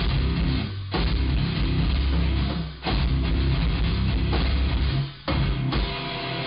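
Heavy metal music with distorted electric guitar and drum kit, broken by short stop-time gaps about a second in, near three seconds and past five seconds.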